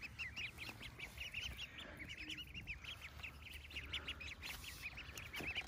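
A group of four-week-old wild ducklings peeping constantly. Many short, high peeps rise and fall and overlap, several to the second.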